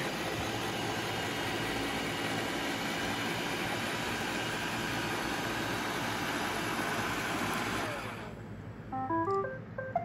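iRobot Roomba 600-series robot vacuum running steadily, its vacuum motor and brushes going as it drives onto its charging dock. The running noise stops about eight seconds in, and the Roomba then plays a short tune of electronic beeps at changing pitches, its signal on docking.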